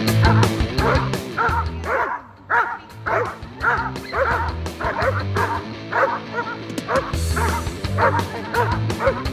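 Dog yipping and barking in short calls, about two a second, over rock music.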